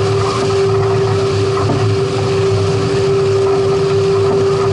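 A boat motor running steadily with a constant hum, over wind and water noise.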